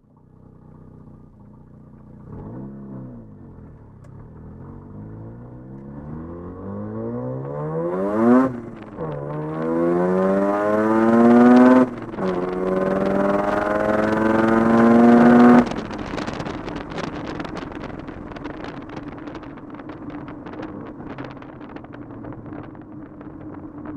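Single-turbo Mazda RX-7's street-ported 13B rotary engine, heard from inside the cabin, accelerating hard: the revs climb in three long pulls with two upshifts, about 8 and 12 seconds in. It cuts off suddenly near 16 seconds as the throttle is lifted and falls to a rough, crackling run.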